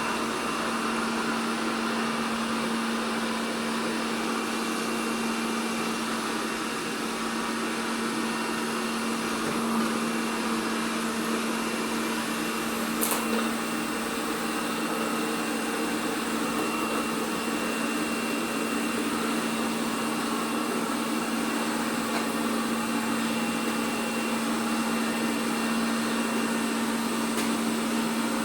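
ELARI SmartBot Lite SBT-002A robot vacuum running steadily, its motor giving an even hum and a whoosh of suction. A single sharp click comes about halfway through.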